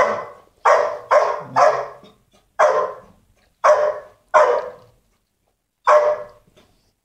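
A shelter dog barking, about eight loud, sharp barks in an irregular run, some in quick pairs, stopping about six seconds in.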